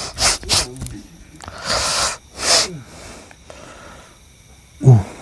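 A man's forceful hissing breaths and snorts in several short bursts, then a loud grunt that falls in pitch near the end.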